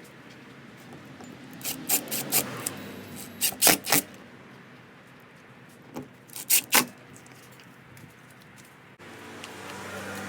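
Small hardware being handled: three quick clusters of sharp metallic clicks and clinks over a low background. A steady low hum sets in near the end.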